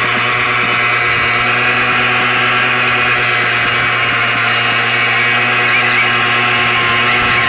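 Simson moped's single-cylinder two-stroke engine held at high, steady revs while its rear tyre spins on wet asphalt in a burnout.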